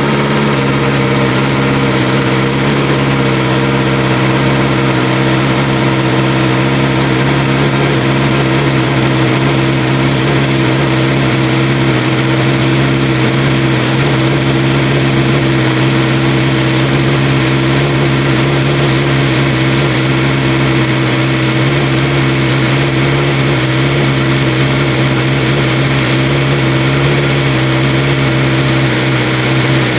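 BMW S1000R inline-four idling steadily through an Austin Racing V3 Mini slip-on exhaust, shortly after a cold start following the winter layup.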